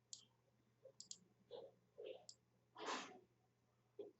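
A few faint, scattered computer mouse clicks over a faint steady electrical hum, with a soft noise about three seconds in.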